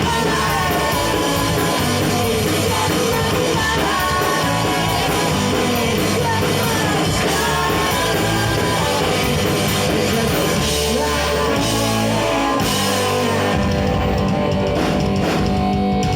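Punk rock band playing live with singing over electric guitars and drums, loud and unbroken.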